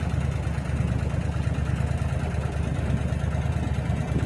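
A boat's motor running steadily with a low hum.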